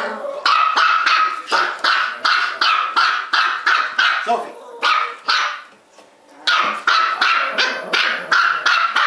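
Small Bichon-poodle and Maltese-poodle mix dogs barking rapidly and non-stop, about three barks a second, with one short pause a little past halfway.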